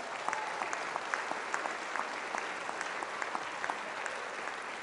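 Audience applauding: a steady round of clapping with individual claps standing out.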